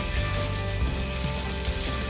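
Water hissing steadily from a hose spray onto a cow's udder and legs during washing, with background music throughout.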